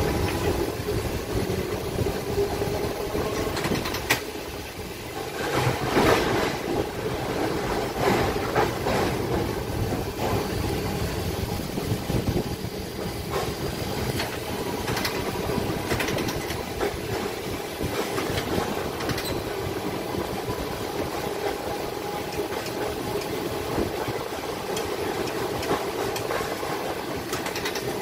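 An electric streetcar running along street track, heard from inside the car: a steady rumble of wheels and running gear, with occasional sharp clacks and rattles.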